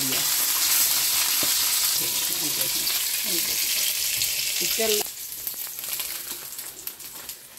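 Fish koftas sizzling steadily in hot oil in a frying pan. The sizzle cuts off abruptly about five seconds in, leaving a few faint clicks.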